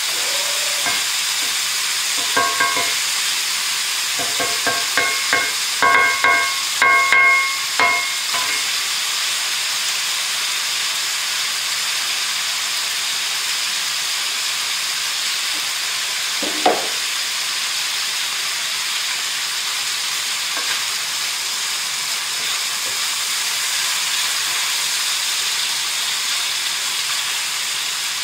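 Diced bacon sizzling steadily in a cast-iron pan as it is stirred with a wooden spoon. A run of short, pitched squeaks comes between about two and eight seconds in, and a single one about two-thirds of the way through.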